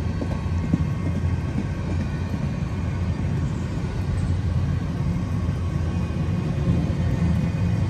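Empty intermodal well cars of a freight train rolling past, a steady rumble of steel wheels on rail.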